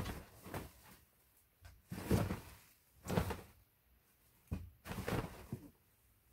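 Pop-up nylon cat tunnel rustling and thudding as cats bat at it and shift inside it: a series of short, sudden bursts about a second apart.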